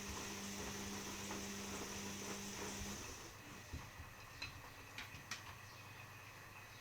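Washing machine running with a steady low hum and hiss, cutting off suddenly about three seconds in, followed by a few faint clicks.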